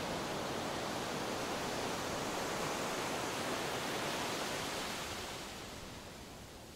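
Steady, even rushing of wind and surf on an open beach, fading down over the last second or two.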